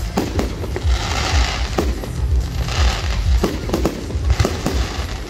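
Fireworks display: a rapid series of shell bursts and sharp bangs, with stretches of crackling stars twice in between, over a constant low rumble.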